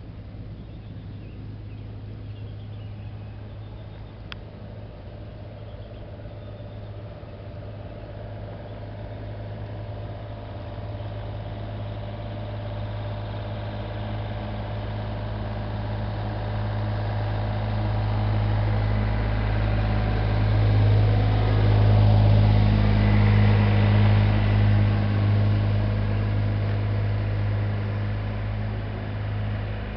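An engine running with a steady low hum, growing louder over about twenty seconds and then easing a little.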